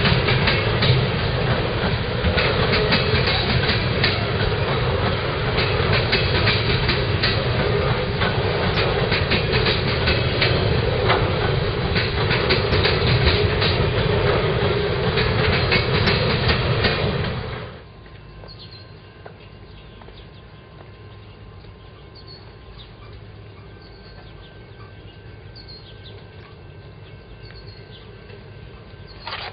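Freight train cars rolling past close by: a steady rumble of steel wheels on rail with rapid clickety-clack over the rail joints. About 18 seconds in it cuts off abruptly, leaving a much quieter background.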